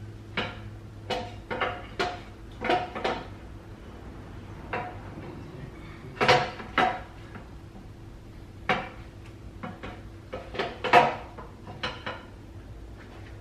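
Irregular metallic clanks and knocks, several ringing briefly, as a new Honda CR250 two-stroke engine is worked into its bare steel frame on a work stand, metal knocking on metal. The loudest knocks come about six and eleven seconds in.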